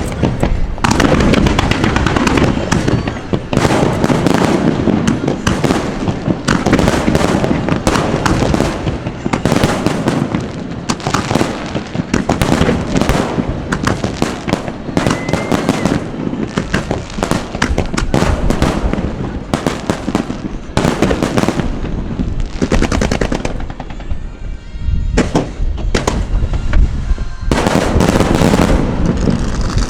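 Fireworks finale: aerial shells bursting in a dense, rapid barrage of overlapping booms. The bursts thin out and quieten about 23 seconds in, then a heavy volley resumes near the end.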